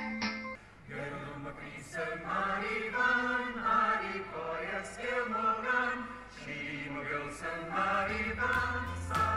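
Adult choir singing. A low steady hum comes in near the end.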